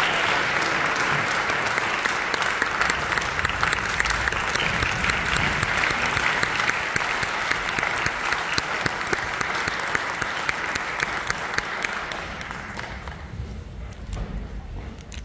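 Audience applauding, a dense, steady clapping that fades away over the last few seconds.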